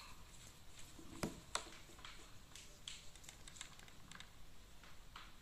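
Faint, irregular small clicks and taps from hands working a metal crochet hook through wool, with two sharper clicks a little over a second in.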